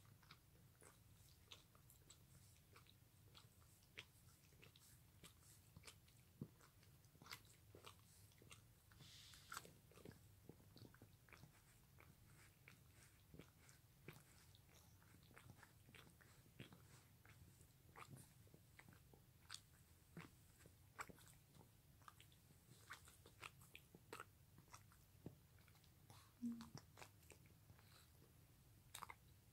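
Faint, irregular wet clicks and smacks from a Pekingese dog's mouth as it licks, with a short, slightly louder low sound near the end.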